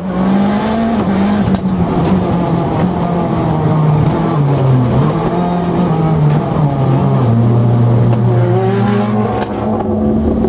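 Race car engine running hard, its pitch rising and falling with throttle and gear changes, then settling to a steady lower note about seven seconds in.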